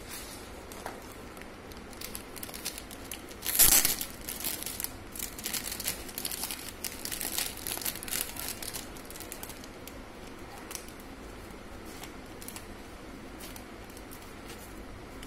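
Plastic packaging crinkling and rustling as it is handled and opened, with a louder burst about four seconds in. The rustling dies away after about ten seconds.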